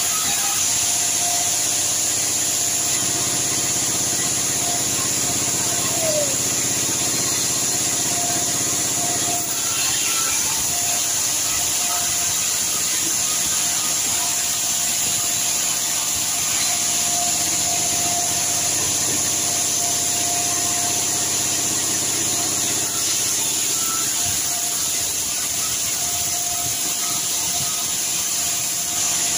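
Sawmill saw running and ripping a red sengon log lengthwise as it is fed through, a steady hiss with a machine hum.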